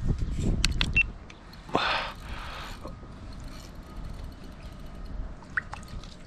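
Low rumble and knocks of handling while a hooked fish is fought from a kayak, with a few sharp clicks in the first second and a short noisy rush about two seconds in.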